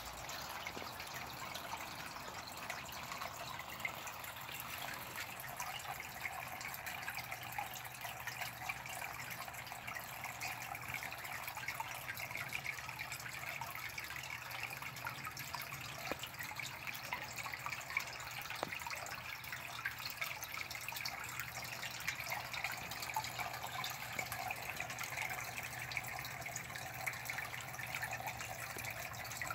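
Water trickling and splashing steadily into a garden pond, under a faint low steady hum.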